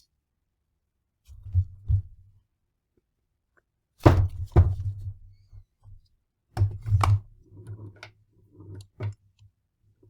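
Vinyl-covered concrete dumbbell plates knocking and thunking as they are handled and set down, in four clusters of knocks with a pause between each.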